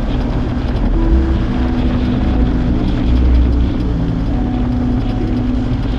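BMW R 1250 GS boxer-twin engine with an Akrapovic exhaust, running steadily while riding, mixed with wind noise.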